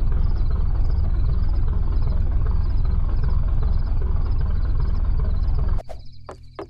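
Loud, steady low rumble that cuts off abruptly near the end, followed by a couple of sharp clicks.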